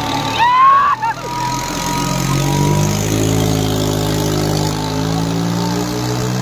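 Tractor diesel engine running hard under load, its pitch climbing slowly from about two seconds in. Just before it, a brief high-pitched rising tone cuts off about a second in.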